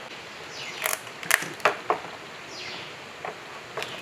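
Long-handled steel socket wrench being worked on bolts: two short scraping slides, each followed by a few sharp metal clicks and clinks.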